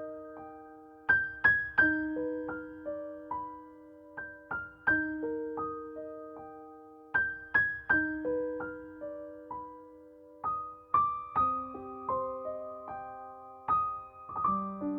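Solo piano background music: a gentle phrase of single struck notes left to ring, repeating about every three seconds.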